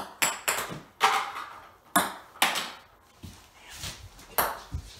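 Connect 4 Shots balls bouncing on a wood floor and against the plastic grid: a run of sharp pings, irregularly spaced, several close together.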